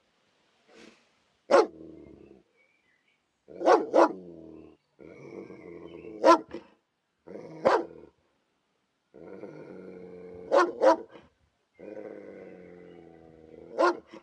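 Police dog barking in sharp single and double barks, about six times, between stretches of low, steady growling.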